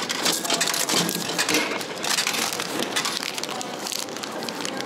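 Plastic snack packaging crinkling and rustling as it is pulled out through a vending machine's delivery flap and handled, a dense run of irregular crackles.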